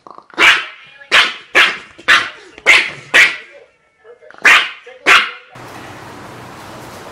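Small long-haired dog barking in eight short, sharp yaps, in two bursts. About five and a half seconds in the barking stops and a steady low hum takes over.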